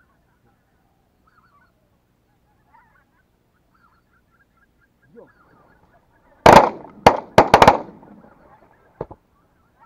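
Wild geese honking faintly overhead, then a volley of about five shotgun shots from several hunters within just over a second, starting about six and a half seconds in. A fainter single bang follows near the end.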